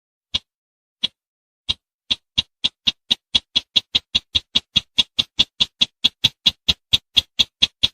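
Repeated call of a sintar, a crake, played as a hunting lure: short, sharp, high notes, slow at first and then speeding up about two seconds in to a steady run of about four notes a second.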